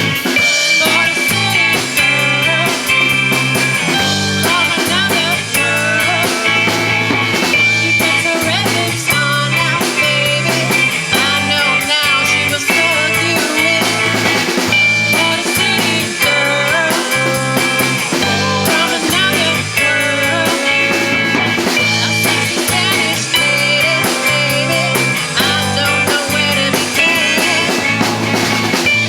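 Live rock band playing an instrumental passage: electric guitar over a moving bass line and a steadily played drum kit.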